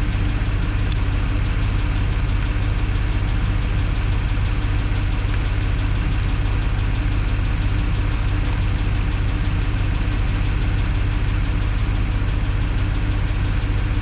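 Small excavator's engine idling steadily, an even deep hum. A faint click about a second in.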